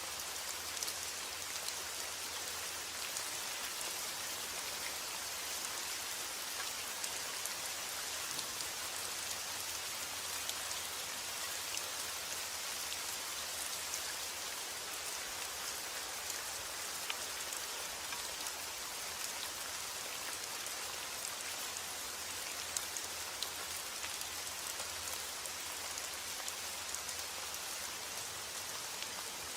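Steady rain falling, an even hiss sprinkled with many small ticks of individual drops.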